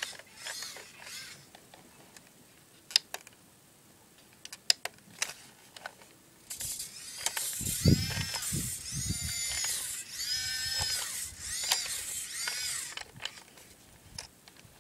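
Electric drive motor and gears of a 1:32 Siku Control32 John Deere 8345R radio-controlled tractor whining in several rising-and-falling sweeps as it drives, starting about halfway in and stopping near the end. A few scattered clicks come before it.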